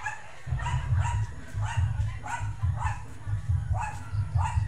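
A dog barking repeatedly, about two barks a second, each bark rising in pitch.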